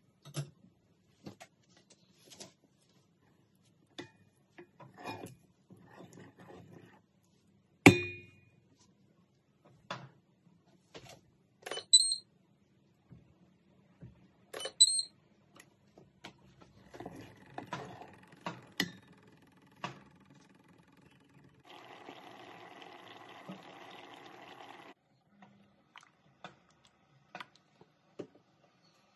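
Kitchen handling sounds: scattered knocks and clicks of utensils and dishes, with one sharp knock about eight seconds in and two ringing metallic clinks a few seconds later. A steady rushing noise runs for about three seconds past the middle.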